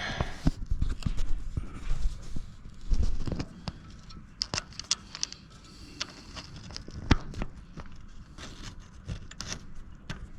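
Scattered clicks, clinks and knocks of hands and tools working a tractor's battery cable connection, with a heavier thump about three seconds in and a sharp click about seven seconds in.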